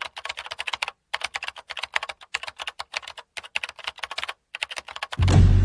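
Typing on a keyboard: a fast, irregular run of key clicks with two brief pauses. Loud music cuts in near the end.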